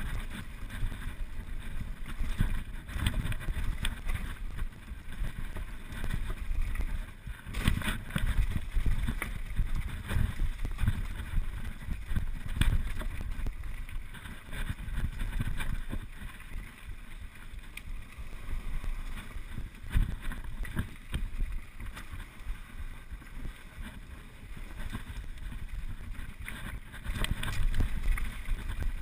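Downhill mountain bike ridden fast over rough forest trail: wind buffeting the mounted camera's microphone, with a rumble from the tyres and a constant run of knocks and rattles as the bike hits roots and rocks.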